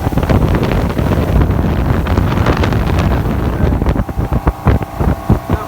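Wind buffeting the microphone on a moving motorboat, with the boat's motor running underneath.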